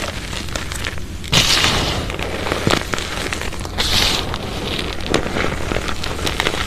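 Hands scooping and squeezing handfuls of crushed, sun-dried powder cylinder: dry, crunchy crumbling with many small crackles, and two louder scrunches about one and a half and four seconds in.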